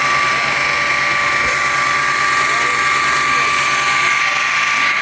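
BMW N52 straight-six held at a steady high idle of around 3,000 rpm to bleed air from its hydraulic lifters after a first start, giving an even, high-pitched whine.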